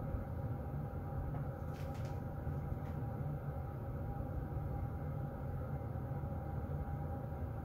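Heater vent blowing air: a steady low rumble with a faint, even hum. A few faint ticks come about two seconds in.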